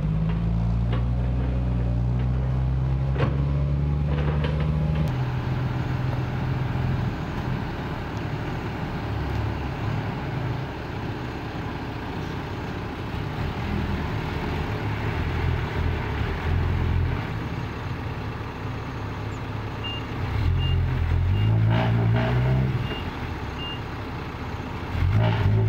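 Diesel engine of a Kobelco SK140 hydraulic excavator working under load. It runs hard for the first few seconds, eases off, then revs up again twice near the end. Over the second surge comes a string of short, evenly spaced high beeps from a reversing alarm.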